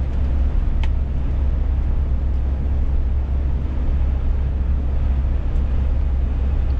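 Steady low rumble of a Scania S500 truck cruising at highway speed, engine and road noise heard from inside the cab.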